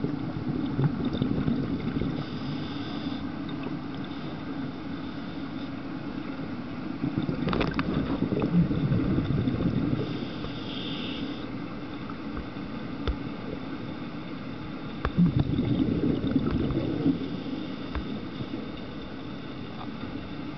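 Scuba diver breathing through a regulator, heard underwater: exhaled bubbles gurgle in two long swells, over a steady low rumble of water.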